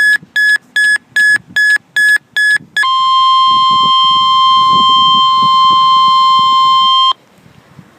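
Emergency Alert System tornado-warning alert: a rapid series of about eight short beeps, about three a second, then a single steady alert tone for about four seconds that cuts off abruptly, leaving a faint hiss.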